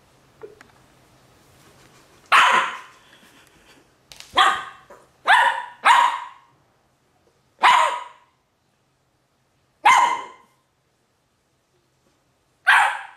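A West Highland White Terrier barking in seven sharp single barks, spaced unevenly one to three seconds apart, with the first coming about two seconds in.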